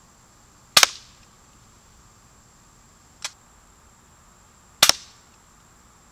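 Crosman Marksman air pistol firing darts: two sharp shots about four seconds apart, each a quick double crack, with a fainter click between them.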